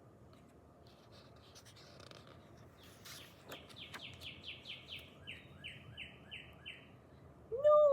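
A bird singing faintly: a quick run of about eight down-slurred notes, then five lower, flatter notes, roughly three a second.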